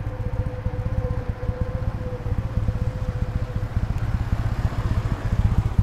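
A motor vehicle's engine running with a fast, even throb, growing a little louder near the end as it comes closer.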